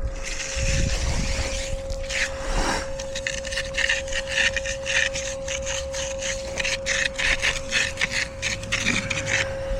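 Steel hand edger being worked along the edge of a freshly poured concrete slab, scraping over the wet concrete in quick back-and-forth strokes, a few a second, from about three seconds in.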